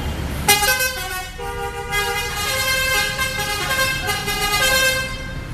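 Bus 'telolet' musical air horn playing a tune: several horn tones sound together and change note in steps, a new phrase beginning about half a second in and stopping shortly before the end.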